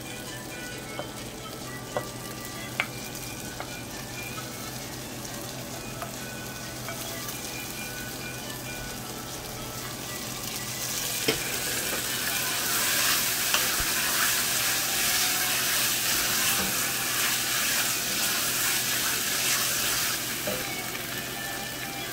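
Beef cubes and onion sofrito sizzling in a hot enameled cast-iron Dutch oven, with a few sharp knocks in the first seconds. About halfway through, the sizzle grows louder as a wooden spoon stirs the meat through the pan.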